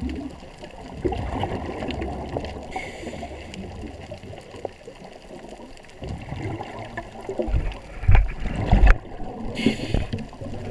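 Muffled underwater noise heard through a GoPro's waterproof housing: irregular gurgling and water movement, with a cluster of low thumps and a short hiss near the end.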